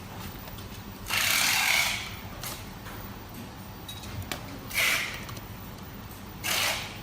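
Handling noises from parts being worked on by hand: three short scraping or rustling sounds, the longest and loudest about a second in, with a few light clicks between them over a faint steady hum.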